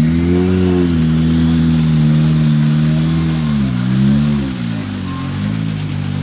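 Hyundai i20 R5 rally car's turbocharged four-cylinder engine pulling hard at high revs. The revs hold steady, then drop and climb again a few times in the second half.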